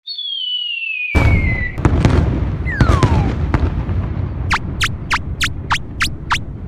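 Cartoon sound effects: a descending whistle, then a loud rumbling explosion that keeps going, a second short descending whistle, and a quick run of seven sharp zips near the end.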